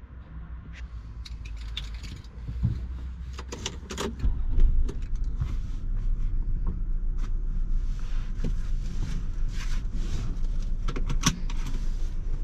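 Keys jangling and small clicks and knocks, then about four seconds in a 1994 Lexus ES300's V6 engine starting and settling into a steady low running sound, with further clicks over it.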